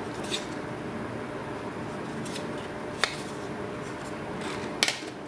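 A few light clicks and rustles of an SSD's box and packaging being handled, one sharp click about three seconds in and a small cluster near the end, over a steady room hum.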